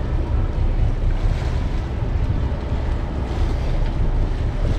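Wind buffeting the microphone as a steady low rumble, over a sportfishing boat's engines running and water churning at the stern.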